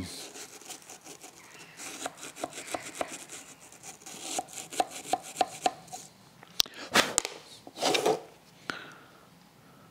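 Small wire brush scraping in quick, rough strokes inside a single-piston brake caliper's bore. Later, a few sharp metallic clicks and two louder knocks as the caliper is handled in the vise.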